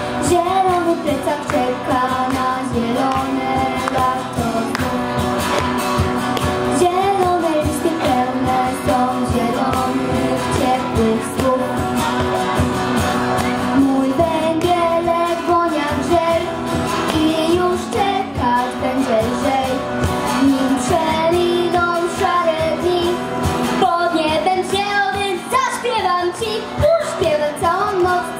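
A girl singing into a microphone over backing music.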